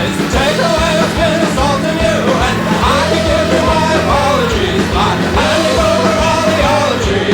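Rock song with a sung vocal over a steady drum beat.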